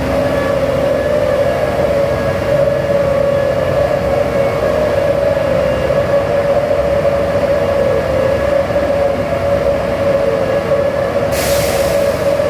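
Steady mechanical drone of heavy machinery, with a strong hum and fainter steady tones above it. About 11 seconds in, a short high hiss joins it.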